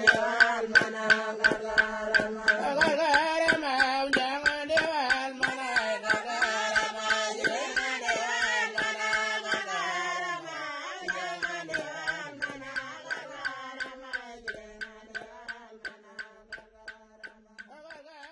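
Backing music of Aboriginal group singing over a steady beat of sharp clicks, growing quieter over the second half.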